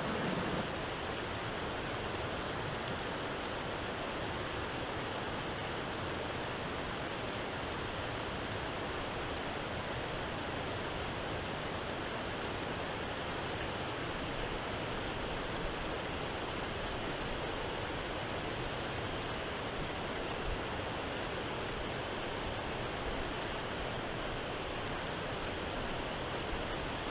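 River water rushing steadily over a rocky bed, a continuous even wash of noise.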